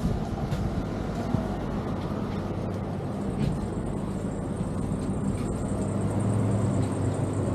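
Steady low rumble and hum of road vehicles, with a thin high whine joining about three seconds in.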